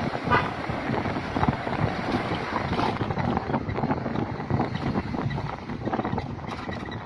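Heavy truck's Caterpillar C15 diesel running, a steady rumble mixed with wind buffeting the microphone.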